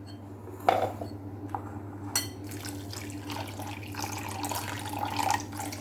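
Water running into a bowl of table salt to dissolve it for a lemon-preserving brine, with a couple of knocks in the first two seconds.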